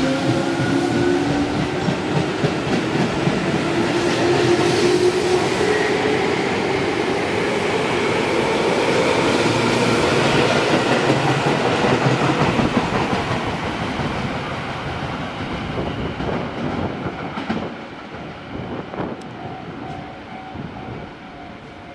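Tobu Tojo Line electric train accelerating away, its traction motors whining as the pitch rises over the first several seconds, with the wheels clattering over the rail joints. The sound fades steadily over the last several seconds as the train draws off.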